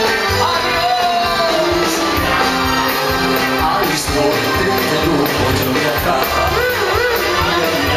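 Loud live band music over a PA, with a steady dance beat and a singer's voice sliding in and out of notes in the second half.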